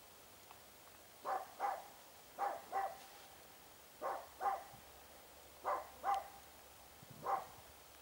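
A dog barking: four quick pairs of barks, a pair every second or so, then a single bark near the end.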